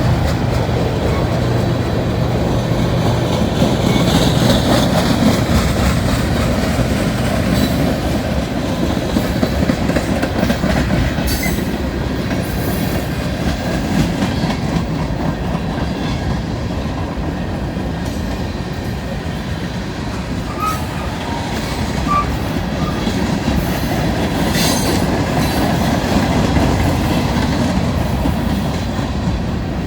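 Freight train cars rolling past, their steel wheels clicking over the rail joints with a steady rumble.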